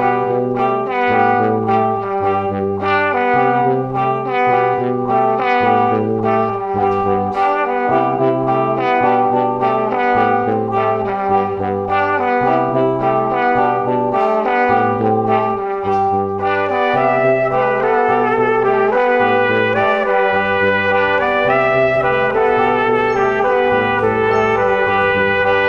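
Background music: a melody over a bass line that steps from note to note about every half second.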